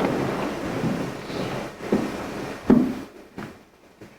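People shuffling down onto their knees: a rustling, shuffling noise with a few dull thumps, dying away about three seconds in.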